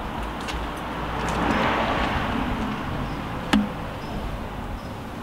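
A vehicle passing by outdoors, its road noise swelling and fading over about two seconds, with one sharp click about three and a half seconds in.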